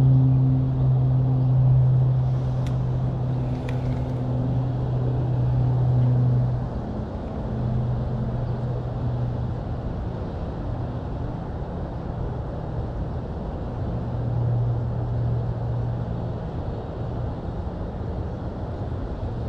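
A steady low motor hum over a dull rumble. The hum is strongest for the first six or seven seconds, then fades and comes back in stretches.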